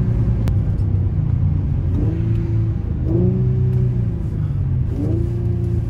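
Nissan VQ35DE 3.5-litre V6 with its intake heard from inside the car, running under way. The revs rise quickly three times and hang briefly each time before dropping away.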